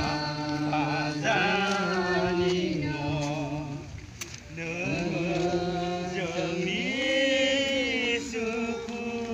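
Slow sung chant, voices holding long, wavering notes, with a brief pause about four seconds in.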